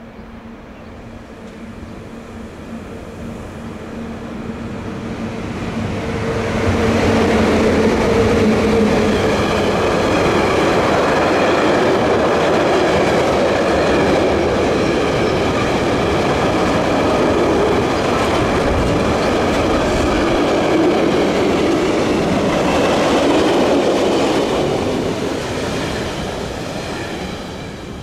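Freight train hauled by a Taurus electric locomotive approaching and passing at speed. A steady electric hum grows louder over the first several seconds, then a long string of Rail Cargo Austria hopper wagons rolls by with a loud, even rumble and wheel clatter, easing off near the end.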